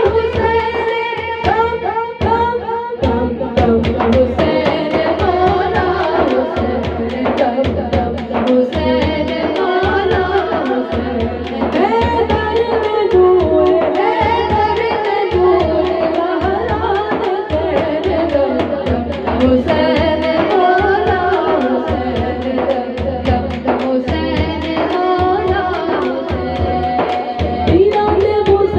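A woman singing a devotional Urdu song in praise of Imam Husain over a steady hand-drum beat. Held instrumental notes play for the first few seconds before the voice comes in.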